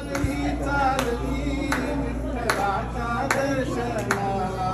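Voices singing a devotional bhajan together, with a sharp percussive beat struck a little more than once a second.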